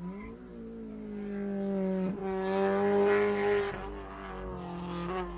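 1992 Mazda Miata's 1.6 L B6 four-cylinder engine running; its pitch dips briefly at the start, then holds steady and grows louder in the middle before easing off. The engine has a rod knock.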